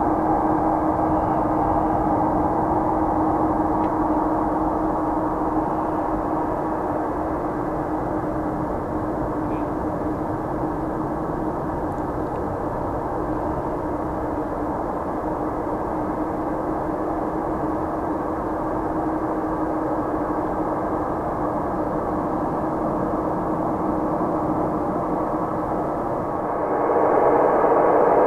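Boeing 747-400's four jet engines running steadily with a low hum, getting louder about 26 seconds in.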